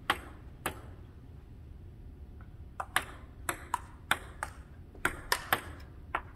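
Table tennis ball clicking off paddles and the table during a rally: two sharp clicks at the start, a pause of about two seconds, then a quicker run of about a dozen clicks.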